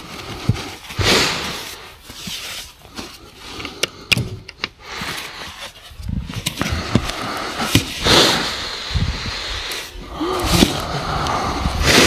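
Gloved hands brushing and scooping deep fresh snow, with boots crunching in it: irregular swishing and crunching, and a few short sharp clicks about four seconds in.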